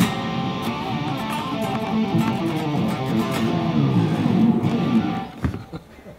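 Electric guitar playing a heavy metal riff, which breaks off about five seconds in, leaving a short hit and a quiet tail.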